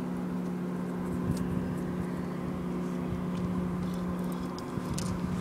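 A motor running steadily with an even, unchanging hum, likely a boat motor, with a few faint splashes of water.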